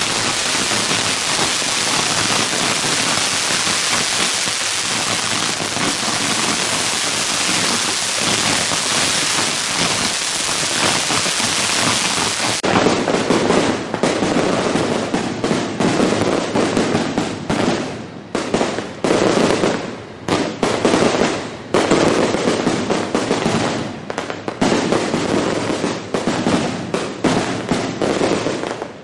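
Long strings of firecrackers going off in a dense, unbroken crackle. About halfway through it changes abruptly to separate clusters of louder bangs with short pauses between them.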